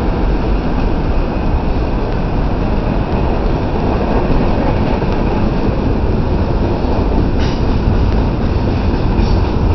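Freight cars of a Norfolk Southern mixed freight train rolling past at speed, a steady rumble of wheels on rail. A short high squeal from the wheels comes about seven and a half seconds in, and a fainter one near the end.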